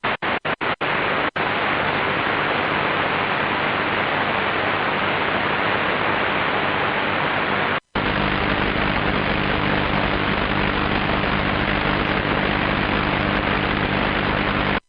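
Shortwave static from a Qodosen DX-286 receiver tuned to an empty frequency, with no station there: a steady hiss with a faint low hum. It cuts out briefly several times in the first second and a half, and once about eight seconds in, as the radio is retuned.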